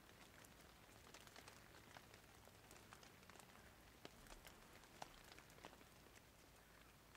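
Near silence: a faint hiss with small, scattered ticks throughout.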